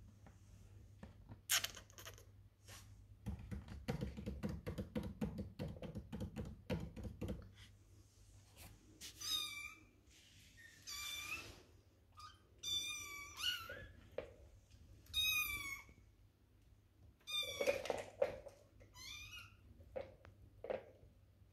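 Maine Coon kittens mewing: short, high-pitched mews that rise and fall, coming every second or two through the second half. Earlier there are a few seconds of rapid plastic clattering from a ball-track cat toy being batted.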